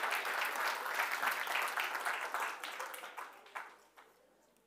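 Audience applauding, the clapping thinning out and dying away about three and a half seconds in.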